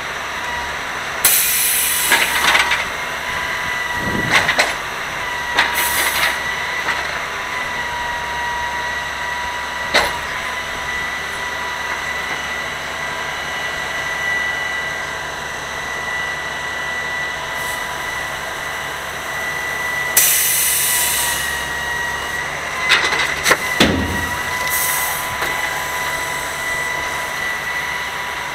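Grapple truck's engine and hydraulic knuckle boom running as the grapple claw swings: a steady high whine, with several short hisses and a few knocks.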